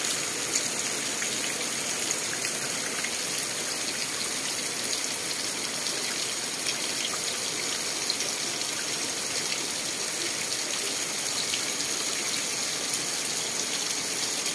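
Steady rain falling, an even hiss with scattered faint ticks of drops.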